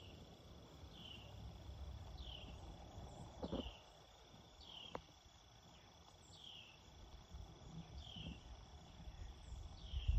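Faint rural morning ambience: a steady high insect trill, with a short falling chirp repeating about every second and a half, over a low outdoor rumble. A dull knock comes about three and a half seconds in.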